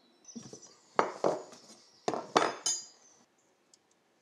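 A metal hand tool clinking against a 1937 Scott motorcycle engine: a handful of sharp metallic knocks with brief ringing, in two groups about a second apart.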